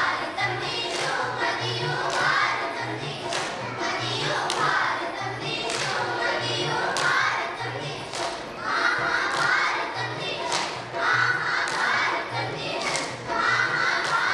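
A group of children singing a song together, in phrases, over a steady low beat, with sharp claps keeping time.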